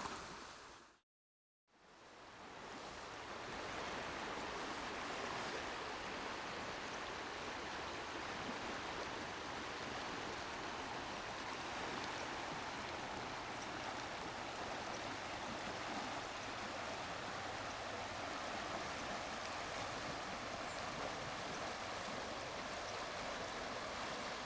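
Steady rushing of a flowing river, fading in after a brief dropout to silence about a second in.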